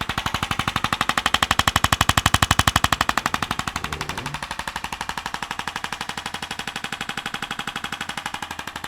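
ArthroStim handheld adjusting instrument firing a rapid, even train of taps into the neck, delivering repeated thrusts to the cervical vertebrae. The taps are loudest in the first few seconds.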